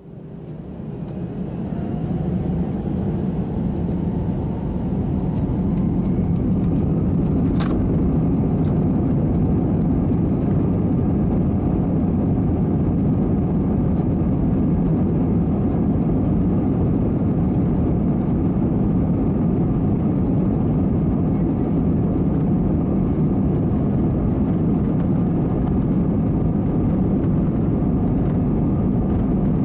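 Airbus A320-232's IAE V2500 jet engines spooling up to takeoff thrust, heard inside the cabin: the noise rises with a faint climbing whine over the first few seconds, then settles into a loud steady rush as the aircraft rolls down the runway. A short click sounds about eight seconds in.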